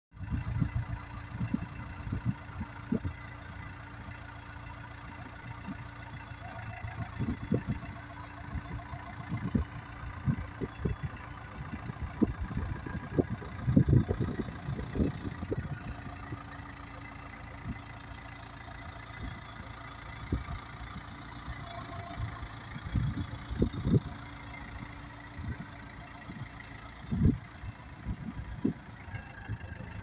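Terex TX760B backhoe loader's diesel engine running steadily at low speed, with irregular low thumps and knocks all through.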